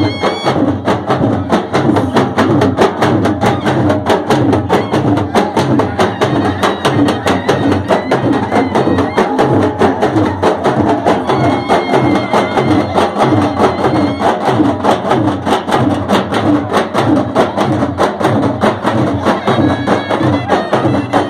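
Siddi traditional drum music: a large barrel drum and other percussion beaten in a fast, steady rhythm.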